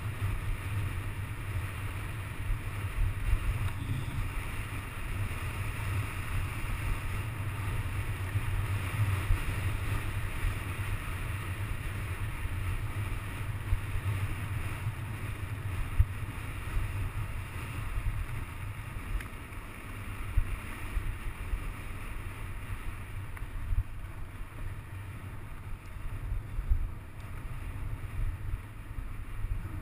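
Wind buffeting a helmet-mounted camera during a fast mountain bike descent, with the rumble and hiss of tyres rolling over a dirt and gravel track and occasional sharp knocks from the bike.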